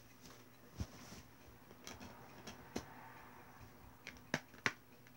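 Faint handling noise from a handheld camera being moved about: a few scattered clicks and taps, with two sharper ones close together near the end, over low room hiss.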